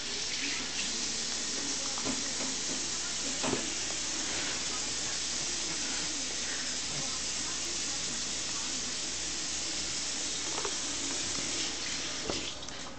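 Water running steadily from a kitchen tap, a hiss that stops about twelve seconds in, with a few faint knocks.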